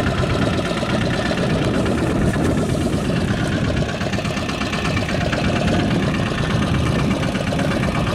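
Small fishing boat's engine idling steadily.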